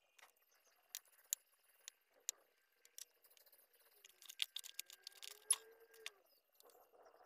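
Light clicks and small metallic taps of hand tools and an amplifier's driver circuit board being handled on a workbench during a transistor replacement. The clicks are scattered at first, then come in a quick cluster in the second half.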